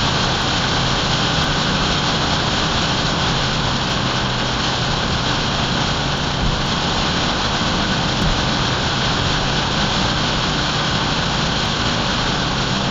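Steady vehicle running noise, an even hiss over a low engine hum that stays level throughout.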